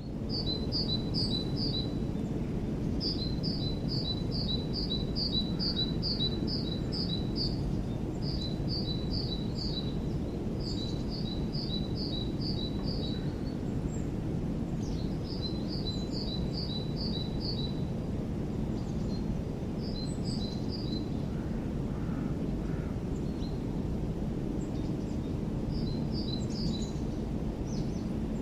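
A bird singing phrases of a high, quickly repeated two-part note, about four notes a second in runs of four to a dozen, with short pauses between phrases. A steady low rumble of background noise runs underneath.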